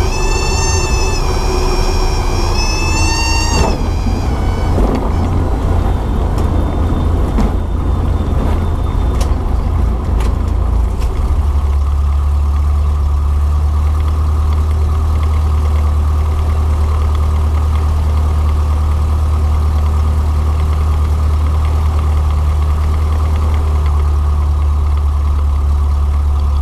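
Cessna 162 Skycatcher's Continental O-200 engine and propeller droning steadily, heard from the cockpit. A high wavering tone sounds for the first few seconds and cuts off. A few clicks follow, and about eleven seconds in the drone becomes steadier and stronger.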